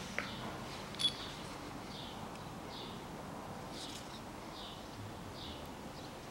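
Faint, repeated short chirps of small birds, with a couple of light metal clicks near the start as an engine main bearing cap is handled.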